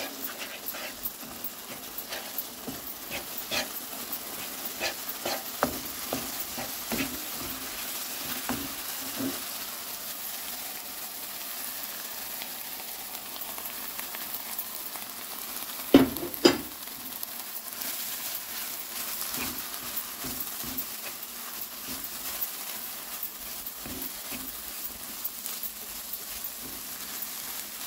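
Vegetables sizzling in oil in a pan while semolina (rava) is poured in and stirred with a wooden spatula, which scrapes and clicks against the pan. Two sharp knocks about half a second apart, just past halfway.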